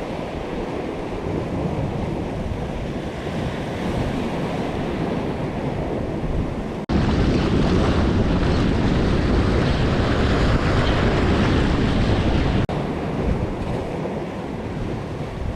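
Wind buffeting the microphone over the noise of the sea, with no tones or rhythm. It cuts abruptly twice, and the middle stretch is louder.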